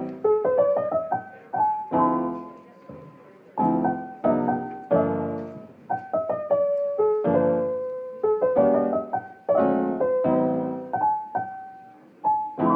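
Piano music: chords struck one after another, each left to ring and die away.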